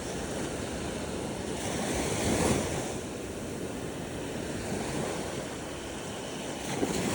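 Ocean surf washing onto the beach in a steady rush, swelling louder as a wave breaks about two and a half seconds in and again near the end.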